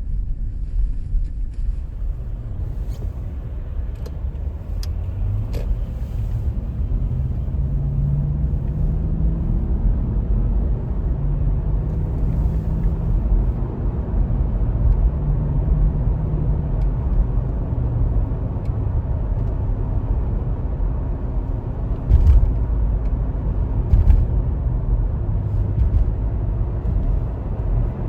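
A car driving, with a steady low engine and road rumble; the engine's pitch drifts slowly up and down.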